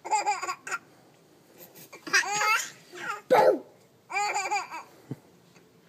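A baby laughing in short bursts, mixed with a young child's high-pitched vocalising. About four separate outbursts with pauses between them, the loudest just after the middle.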